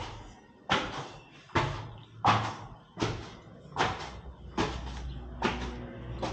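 Footsteps climbing hard tiled concrete stairs, one sharp echoing step about every 0.8 s.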